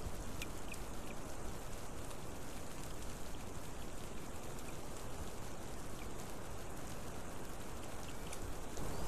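Steady rain falling on the pine forest and nest, an even hiss of drops with no single sound standing out.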